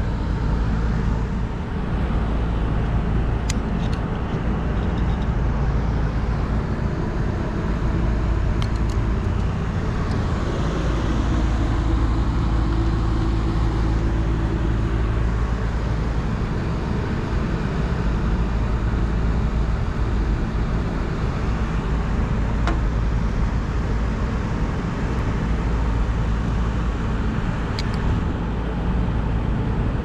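A steady low machinery rumble and hum that never changes level, with a few faint clicks from hand tools working on wire connectors.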